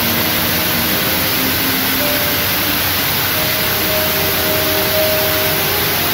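Steady, loud white-noise hiss with soft background music faintly under it.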